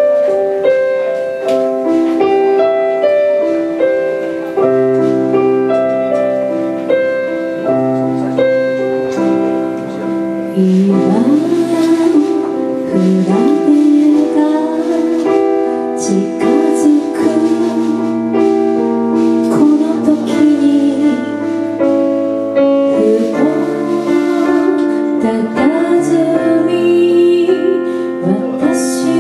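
Live band with keyboard, bass and drums playing an oldies pop song: a keyboard-led intro, then a woman starts singing in Japanese about ten seconds in.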